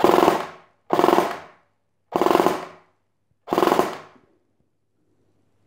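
Ares/Star SA80 airsoft electric rifle firing four short fully automatic bursts about a second apart, its freshly reassembled gearbox cycling rapidly in each burst.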